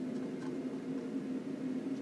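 A steady low hum with a faint hiss: background room or equipment noise.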